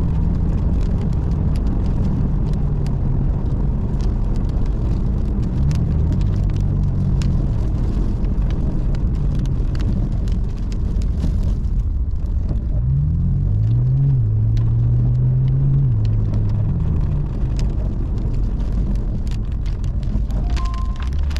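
Car engine running under a steady low rumble, its pitch rising and falling several times as the car changes speed, with scattered sharp ticks throughout.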